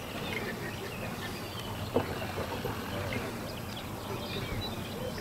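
Faint open-air background with scattered high bird chirps and one short knock about two seconds in.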